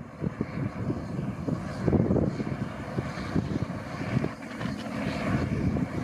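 Case International Axial-Flow 1660 combine harvester running while it cuts barley: a steady mechanical drone over uneven low rumbling.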